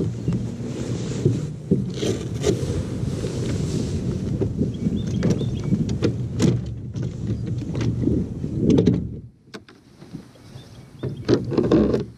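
Steady low rumble on a bass boat, with scattered knocks and clicks on the deck. The rumble stops abruptly about nine seconds in, leaving a few more knocks near the end.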